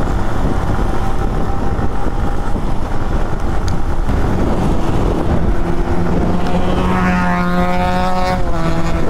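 Motorcycle riding in traffic: a steady low rumble of engine and wind, with a steady humming engine note that comes in a little past halfway and holds, shifting in pitch near the end.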